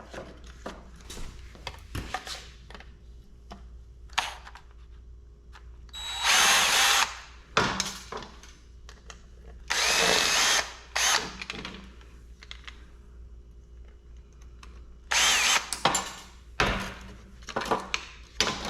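Power drill running in three short bursts of about a second each, its motor pitch gliding as it spins up and slows, with small clicks and knocks of metal parts being handled between the bursts.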